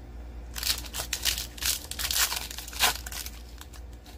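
Foil wrapper of a Panini Prizm trading card pack being torn open and crinkled: a run of crackly rips and rustles from about half a second in, loudest near the end.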